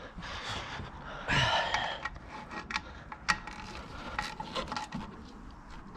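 Handling noises while working on the tractor: two short rubbing scrapes in the first two seconds, then scattered small clicks and knocks of parts and containers being handled.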